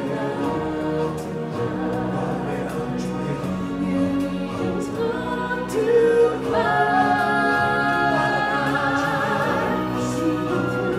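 Choir singing over orchestral music, with sustained notes. About six and a half seconds in, a voice holds long wavering notes for a few seconds.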